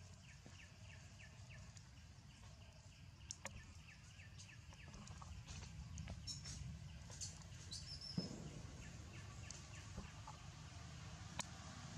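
Faint forest ambience: birds chirping, with a few sharp clicks over a low steady rumble.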